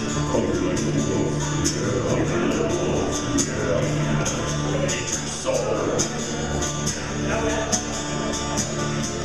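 Instrumental passage of a rock song: the band plays on with a steady beat and evenly spaced high percussion strokes.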